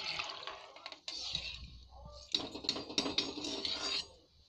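Rattling and scraping from a metal cooking pot of rice, water and whole spices, in uneven bursts of a second or two with short gaps between.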